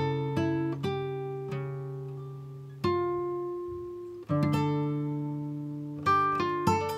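Background music: slow plucked acoustic guitar, single notes and chords that each ring out and fade before the next.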